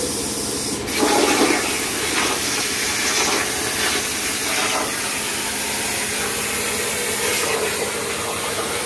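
CNC plasma cutter torch cutting a steel sheet. There is a sharp crack about a second in as the arc strikes, then a steady, loud rushing hiss of the plasma arc.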